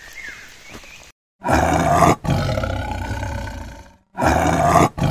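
Two long tiger roars, each starting and stopping abruptly, with a moment of dead silence before each one.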